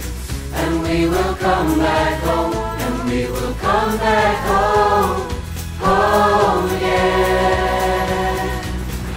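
A school choir of mixed young voices singing over instrumental backing, with held low notes and a steady beat.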